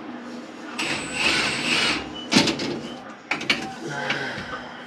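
Hand-tool work on metal under a truck: a burst of mechanical whirring about a second in, then scattered sharp metal clicks and knocks of tools and hardware.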